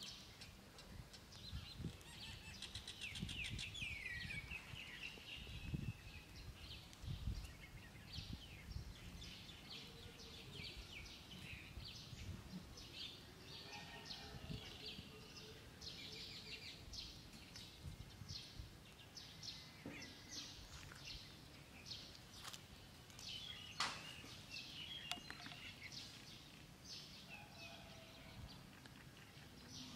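Faint outdoor ambience: small birds chirping in quick repeated short notes, with irregular low rumbling bumps and a single sharp click a little after the middle.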